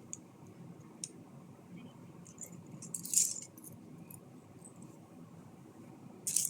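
Loose plastic Lego pieces clicking and rattling as they are rummaged through in search of a part. There are a few small clicks, with a louder rattle about three seconds in and another near the end.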